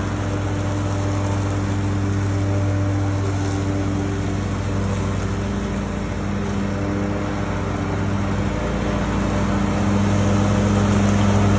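An engine running steadily, a low even hum over a noisy background that grows slightly louder near the end.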